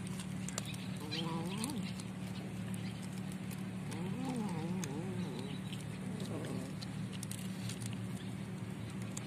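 Cats eating food scraps off paper, with many small crunching clicks, and a cat's low wavering growl-yowl twice: about a second in, and again from about four seconds in. A steady low hum sits underneath.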